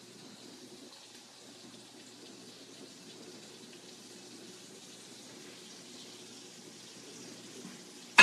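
Turkey burgers faintly sizzling in a frying pan, a steady even hiss.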